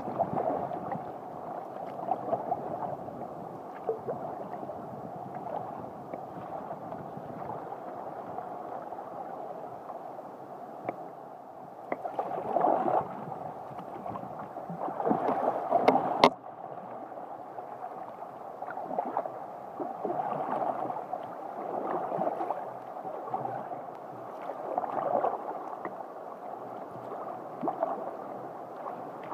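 Water washing and gurgling along a sea kayak's hull as it is paddled, swelling every couple of seconds with the paddle strokes. A sharp knock sounds about sixteen seconds in.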